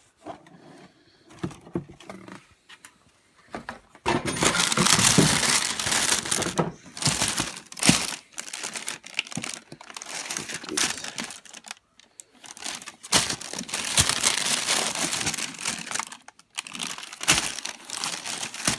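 Packaging being handled and crumpled: a few light rustles and clicks at first, then loud, continuous crinkling and tearing from about four seconds in, with short pauses.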